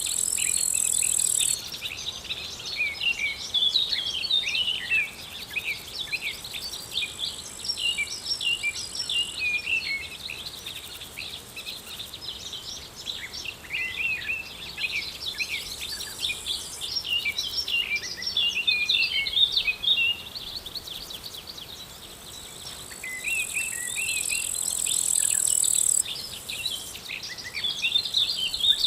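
Outdoor chorus of many small birds chirping and twittering at once, over insects stridulating in a thin, steady high-pitched buzz that swells and fades in stretches.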